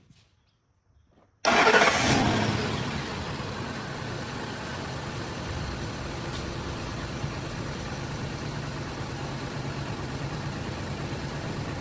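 Ford 5.4 L Triton V8 engine coming to life about a second and a half in, loud at first, then settling into a steady idle. The engine has a misfire on cylinder 1 from a failed fuel injector.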